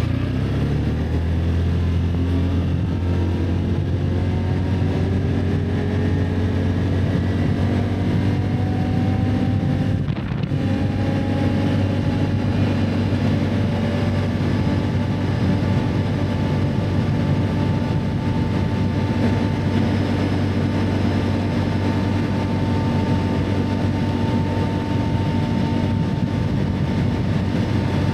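Can-Am ATV engine running under way, its revs climbing gradually, easing off briefly about ten seconds in, then holding steady and slowly rising again.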